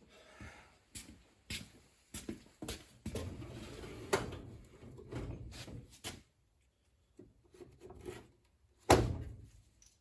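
Scattered knocks and clatter of hand tools and parts being handled and set down, with a stretch of rummaging in the middle and one heavy thunk near the end.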